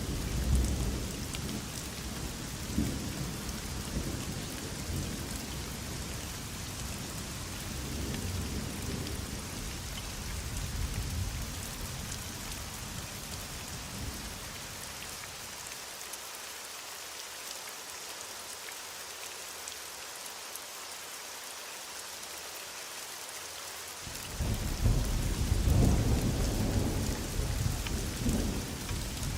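Heavy rain hissing steadily with rolls of distant thunder. The low rumble dies away in the middle, and a louder thunder roll breaks in about 24 seconds in.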